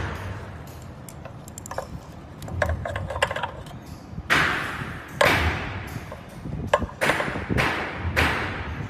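Hard objects handled during a repair: a run of small clicks and clatter, then several sharper knocks that ring briefly, about five of them in the second half.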